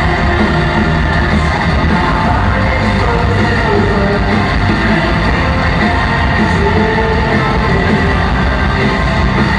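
A rock band playing loud and live, with heavy bass and drums, and some yelled singing or crowd voices over the music.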